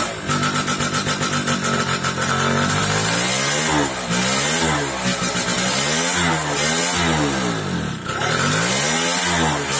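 Yamaha F1ZR's two-stroke engine being revved. It runs unevenly and stutters for the first couple of seconds, then takes repeated throttle blips, its pitch rising and falling about once a second. The engine alternates between sputtering ('brebet') and loud free revving, an intermittent fault whose cause the owner does not know.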